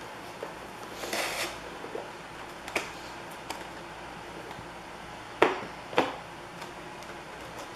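Hands handling the model's plastic and foam packaging: a brief rustle about a second in, then scattered sharp clicks and taps, the two loudest about half a second apart past the middle.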